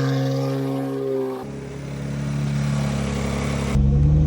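BMW X3 M Competition's twin-turbo inline-six running, the sound changing abruptly twice as clips are spliced together. The pitch swells and eases in the first part, holds steady in the middle, and about half a second before the end the engine gets louder and starts to climb as it accelerates.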